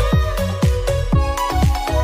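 Background electronic music with a steady fast beat of low thumps, about four a second, under held notes.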